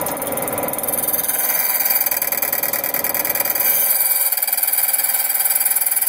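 Manual key duplicating machine running steadily, its motor-driven cutting wheel grinding the teeth into the second side of a double-sided car key blank, with a strong high hiss over the motor whine.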